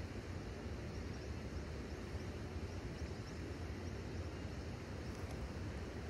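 Steady low rumble of wind on the microphone, with faint high ticks about twice a second.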